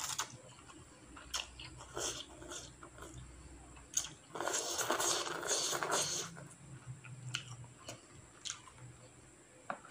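A person eating instant noodles in soup: short wet chewing and mouth clicks, with one longer slurp of about two seconds near the middle as the noodles are sucked in.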